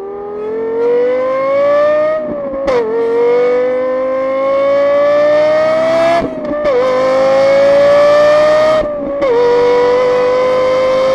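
Lexus LFA's 4.8-litre V10 accelerating hard through the gears. It cuts in abruptly, its note climbs steadily in each gear and dips sharply at three quick upshifts, going from first up to fourth.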